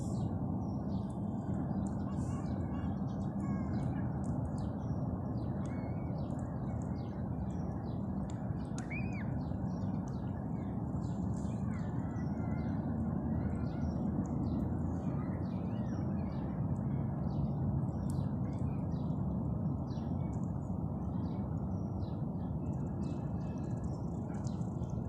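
Outdoor shore ambience: a steady low rushing noise with many short, high bird chirps and calls scattered through it.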